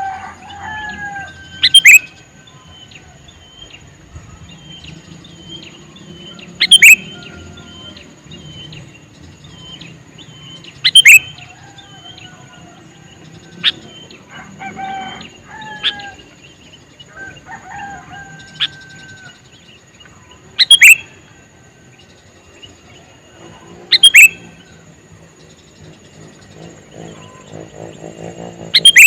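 Male sooty-headed bulbul calling: six loud, sharp calls spaced several seconds apart, with softer chirps and whistled notes in between.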